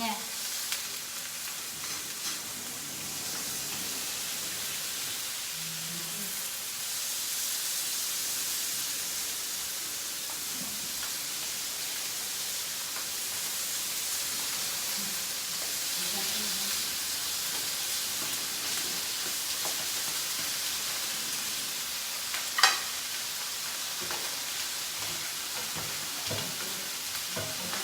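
Mushrooms and garlic sautéing in a frying pan: a steady sizzle with the occasional light scrape and click of stirring, and one sharp knock about 23 seconds in.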